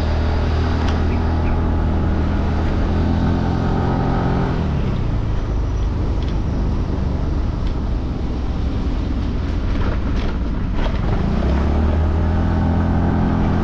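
Motor scooter engine running under way. Its note drops and eases off about four and a half seconds in, then rises again near the end.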